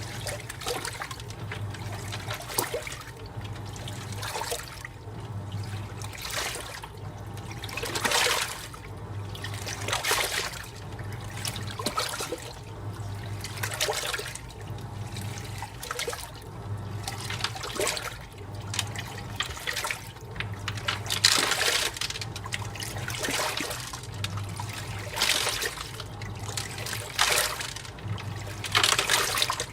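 AQUA MCW-C70 coin-operated top-loading washing machine agitating in its rinse cycle: water sloshing in the tub with a surge about every one and a half seconds, and the drive motor humming in short pulses as the agitator swings back and forth.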